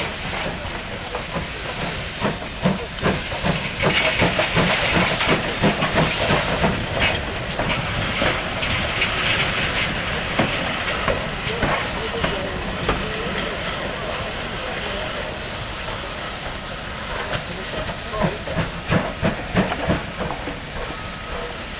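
GWR 'Large Prairie' 2-6-2T steam tank locomotive working at low speed, steam hissing throughout, with a run of rhythmic exhaust beats over the first several seconds and again near the end.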